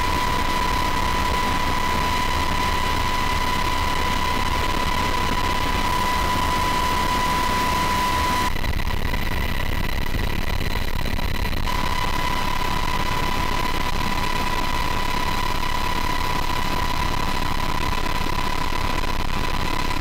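Aircraft engine noise heard inside the cabin: a steady drone and hiss with a steady high whine. The whine drops out and the sound dulls for about three seconds near the middle.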